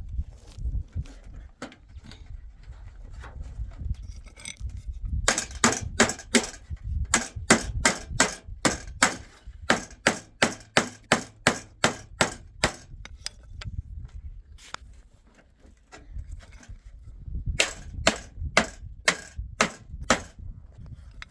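Hammering: a long run of some twenty quick, even blows, about three a second, starting about five seconds in, then after a pause a shorter run of about eight blows near the end.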